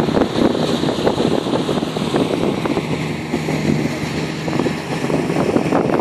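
Wind blowing on the microphone, a steady rushing with crackly buffeting.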